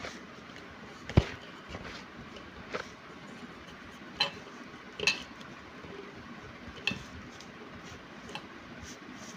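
Metal spoon stirring a crumbly flour mixture in a steel pot, now and then knocking and clinking against the metal: about six irregular clinks, the loudest about a second in.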